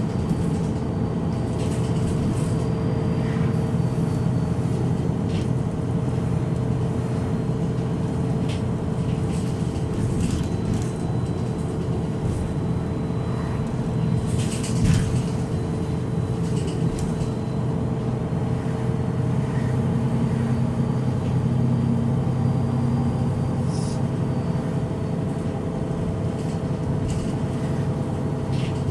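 MAN NG313 articulated city bus's rear-mounted D2866 LUH engine, a 12-litre turbocharged, intercooled horizontal inline six, idling steadily while the bus stands. A brief knock sounds about halfway through.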